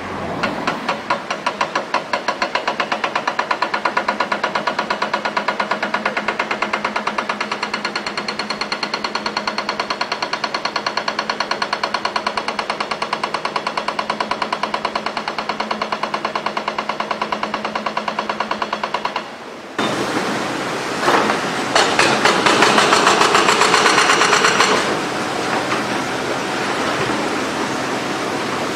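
Excavator-mounted hydraulic rock breaker hammering rapidly and evenly over the excavator's running engine. About two-thirds of the way through the hammering stops suddenly and a louder, rougher machinery noise takes over.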